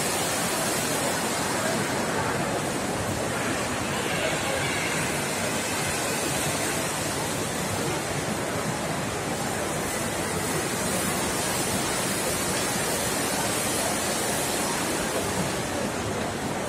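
Steady shopping-mall ambience: a constant rushing hiss with faint background voices of shoppers.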